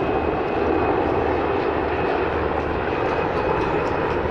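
Navy Seahawk helicopters (MH-60R, MH-60S, SH-60F) flying past in formation: steady turbine and rotor noise with a thin, high steady whine over it.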